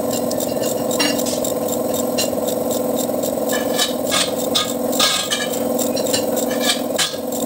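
Socket ratchet wrench clicking in short, irregular strokes as a bolt is turned on a truck transmission, with light metal clinks of the tool, over a steady low hum.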